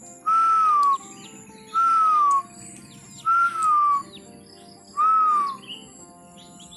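White-breasted waterhen (ruak-ruak) calling: four loud, harsh, slightly falling calls, one about every second and a half.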